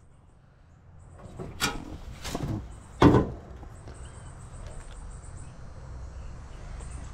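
A few short knocks and clunks, the loudest about three seconds in, followed by a faint steady low hum.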